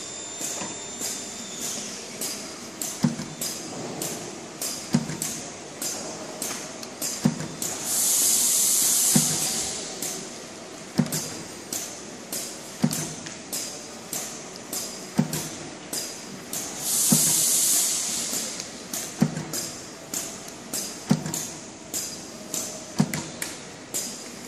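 SAVEMA friction feeder and conveyor belt running with an SVM 32I thermal transfer printer printing on packaging bags: fast clicking as the bags are fed and a low thump about every two seconds. Twice there is a long, loud burst of air hiss.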